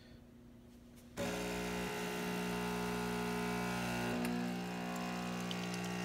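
Yabano 20-bar espresso machine's pump switching on about a second in and humming steadily as it pushes hot water through the coffee in the two-cup filter, brewing espresso.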